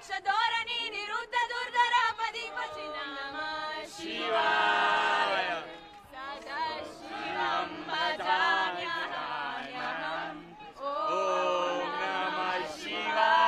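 A group of people singing together without instruments, with long held notes about four seconds in and again near the end, over crowd noise.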